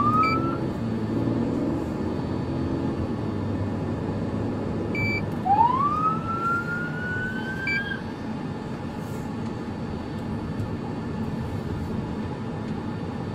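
Police siren sounding two brief rising wails: a short one at the very start, and a longer one about five and a half seconds in that climbs, holds for a couple of seconds and then cuts off. Steady engine and road noise from the moving patrol car runs underneath.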